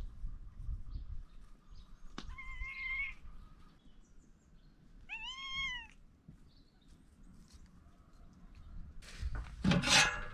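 A cat meowing twice: a faint short call about two seconds in, then a clearer meow that rises and falls in pitch at about the middle. Near the end comes a loud, brief noisy sound, the loudest thing here.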